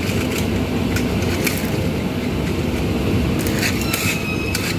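Steady low rumble of background workshop machinery, with a few light clicks and rattles from the sanding belt being handled and a brief squeak near the end.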